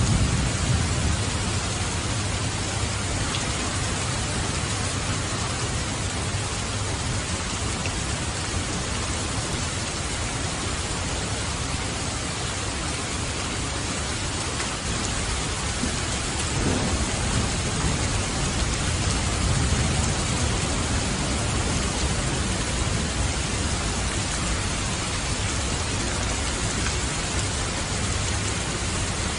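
Steady, heavy rain falling, with a low rumble of thunder at the start and another rolling in about halfway through that lasts several seconds.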